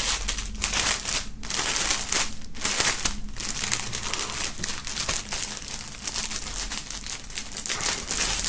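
A thin clear plastic bag around a folded T-shirt crinkling and rustling as hands grip it, work the opening and pull it apart, in irregular crackly bursts with brief lulls.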